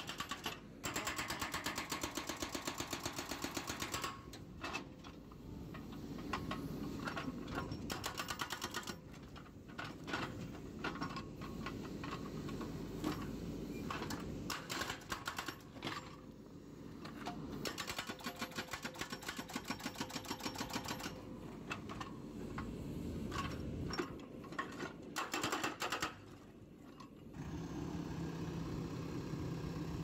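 Hydraulic breaker on a JCB 3DX backhoe loader hammering its chisel into the ground and concrete at the base of a pole, in rapid bursts of blows with the machine's engine running between them. Near the end the hammering stops and the engine runs on steadily.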